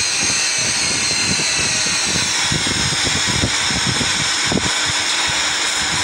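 Samsung Ecobubble WF60F4E4W2W front-loading washing machine in its spin cycle: a steady whir of the spinning drum with a faint high motor whine, its pitch sinking slightly in the second half.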